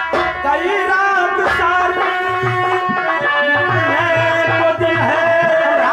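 Live nautanki folk-theatre music: a man singing a wavering line over held instrument notes and drum strokes, the drum settling into a steady beat of about four strokes a second in the second half.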